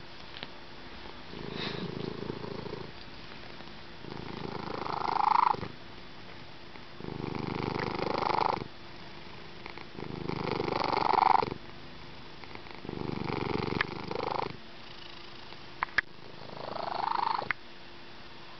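Slow, rhythmic breathing sound, one breath in or out about every one and a half seconds, with a couple of sharp clicks near the end.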